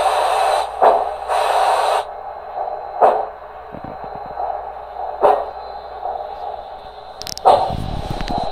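Soundtraxx Econami sound decoder in an HO-scale Santa Fe 3751 4-8-4 steam locomotive model playing steam sounds through its speaker as the model runs slowly. A steady hiss cuts off about two seconds in. Sharp exhaust chuffs come roughly every two seconds.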